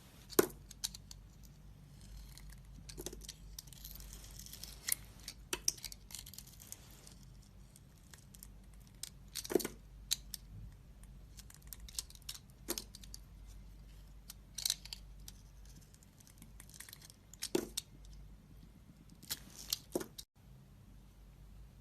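Knife carving into a bar of soap: irregular crisp cuts and snaps as pieces break away, with light crackling scrapes between them.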